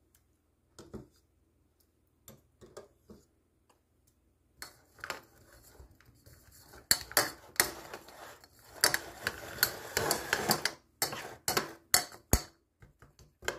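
A metal spoon clinking and scraping against a bowl as tea is spooned into crumbled cookie and stirred in. It starts with a few scattered taps, then about four and a half seconds in turns into steadier scraping with many sharp clinks.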